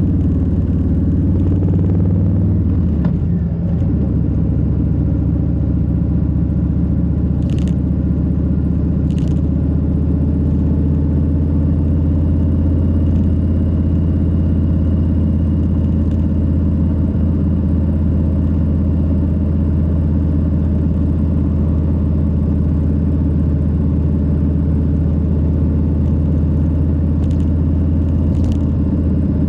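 Harley-Davidson Low Rider S Milwaukee-Eight 117 V-twin engine and exhaust running at a steady cruise under the rider. The engine note changes about three seconds in, then holds steady.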